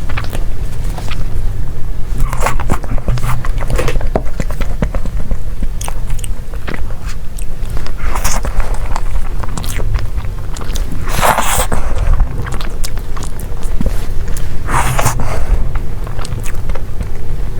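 Close-miked eating: a person biting into and chewing soft desserts with irregular wet mouth sounds and small crunches. Two louder bites come partway through, over a steady low rumble.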